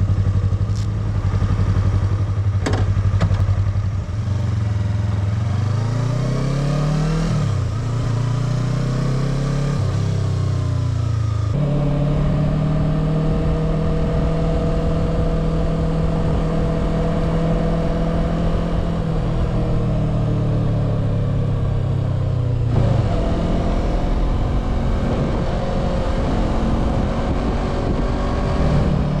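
Sport motorcycle's engine running under way: it revs up with rising pitch, drops at gear changes about seven and eleven seconds in, holds steady at cruising speed, then falls away about twenty-three seconds in before pulling again.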